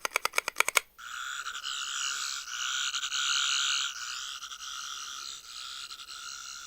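Toy Third Doctor's sonic screwdriver playing its electronic sound effect after a quick run of clicks: a steady warbling buzz from its small speaker that swells louder for a couple of seconds in the middle. This is the sound it gives when pulled down four or more times.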